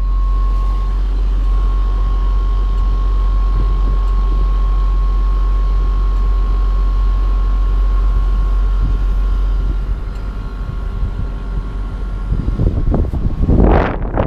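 Outdoor unit of an Argul split air conditioner running just after switching on: a strong, steady low hum with a high whine near 1 kHz, an odd sound that the owner calls really weird. A loud rushing noise comes near the end.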